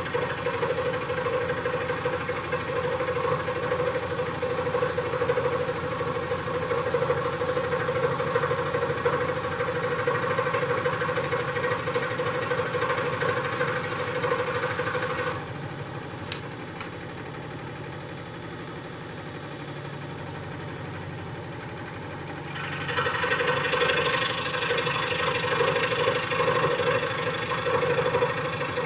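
Electric jigsaw cutting balsa wood, running steadily with a strong mid-pitched hum. From about 15 to 23 seconds in, the cutting sound drops away to a quieter low hum, then comes back at full level.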